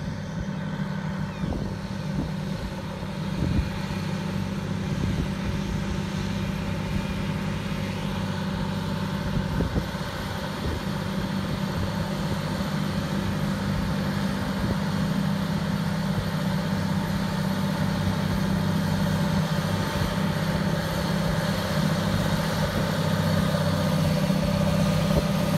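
Two John Deere tractors' diesel engines running steadily under heavy load as they pull subsoilers through very compact ground, with a deep drone that grows slowly louder as they approach.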